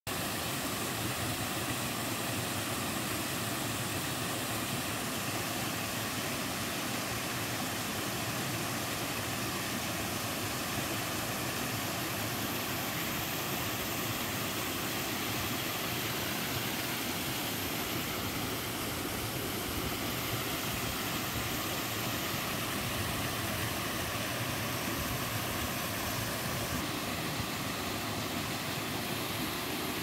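Small two-tier mountain waterfall cascading over granite rock into a stream: a steady, unbroken rush of falling water.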